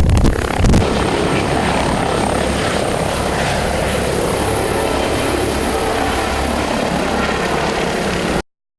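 Helicopter running steadily, its rotor and turbine noise mixed with heavy low buffeting on the microphone in the first second. The sound cuts off abruptly near the end.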